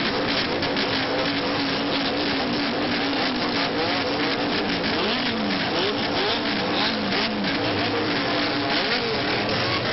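Several engines revving at once, their pitches rising and falling over one another above a steady rasp of exhaust noise.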